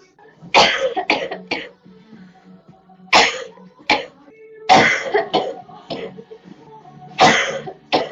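A girl coughing repeatedly in fits: a quick run of about four coughs half a second in, single coughs at about three and four seconds, another run of three at about five seconds, then a cough at about seven seconds and a short one near the end.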